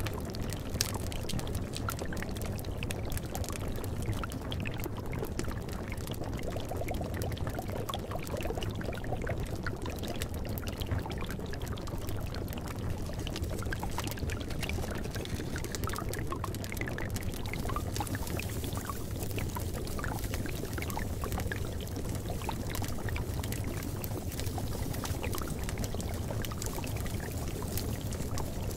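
Steady running, splashing water, like a continuous flowing water ambience, with many small drips and splashes scattered through it.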